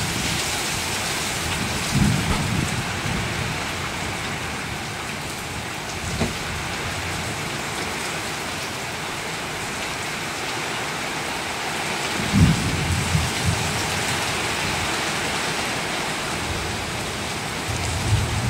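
Heavy tropical rain falling steadily in a hiss, broken a few times by short low rumbles from gusts of wind or distant thunder, the strongest about two-thirds of the way through.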